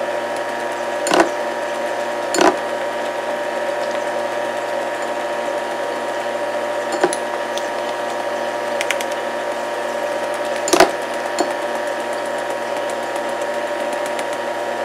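A steady machine hum with several held tones, over which a handheld metal mesh strainer of flour is tapped above a stainless steel bowl: four sharp taps, at about one, two and a half, seven and eleven seconds in.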